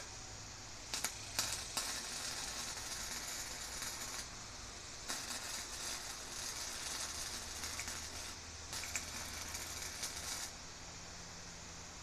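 Electric arc welding on a steel garage door spring: the arc crackles and sizzles in three runs. It starts about a second in, breaks off briefly around four seconds and again near nine seconds, and stops about ten and a half seconds in.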